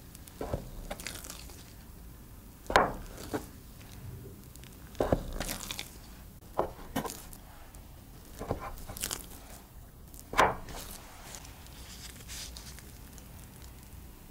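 Chef's knife pressed through soft risen yeast dough onto a wooden board, giving a sharp knock with each cut, roughly every one to two seconds, with quieter handling of the dough between the cuts.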